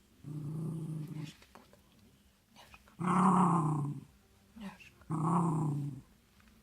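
A small West Highland white terrier growling: three drawn-out growls of about a second each, with a few short clicks in the gaps between them.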